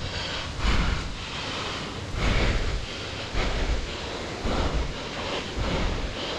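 Wind buffeting the microphone: a rumbling rush that swells and eases every second or so.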